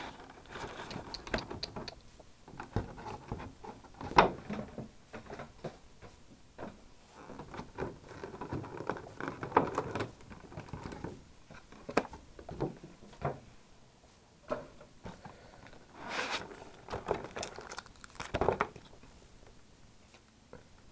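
A cardboard collection box and its plastic packaging being opened and handled: irregular rustling, taps and clicks, with a few sharper knocks.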